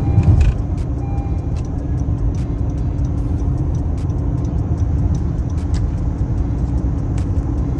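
Car driving: steady engine drone and road rumble, with a short louder low thump just after the start.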